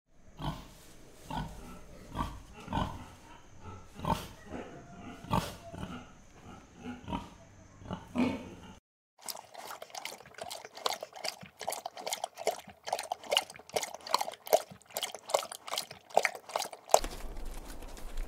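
Piglets giving a string of short grunts and squeals for the first nine seconds or so. After a sudden cut, a dog eats from a stainless steel bowl, a fast irregular run of short clicking and crunching sounds, several a second, which stops about seventeen seconds in.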